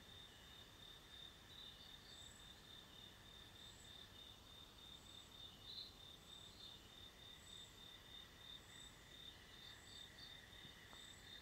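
Near silence with faint crickets chirping: a steady high trill and soft chirps repeating a little under a second apart. The radio's speaker is silent while the DRM receiver tunes and locks onto the signal.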